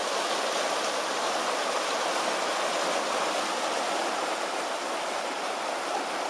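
Floodwater rushing steadily, a constant even roar of flowing water.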